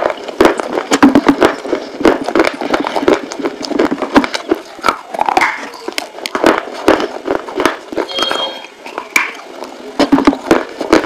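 Close-miked biting and chewing of pieces of baked terracotta clay pot: dense, irregular crunching and crackling as the brittle clay breaks between the teeth.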